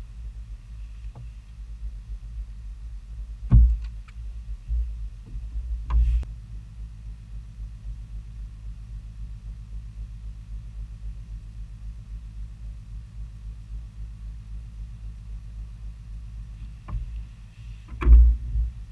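Steady low rumble on a fishing boat, with several sudden knocks and thumps against the boat about 3.5, 5 and 6 seconds in and again near the end, the last the loudest.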